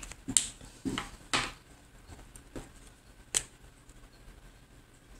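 A few short, sharp clicks and taps, about five over three seconds, from a fine-liner drawing pen being handled and set back down on the drawing card.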